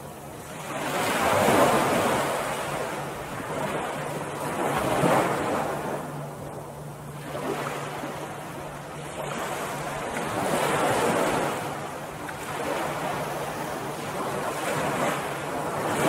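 Ocean waves breaking and washing up a beach, the surf swelling and fading about five times, a few seconds apart.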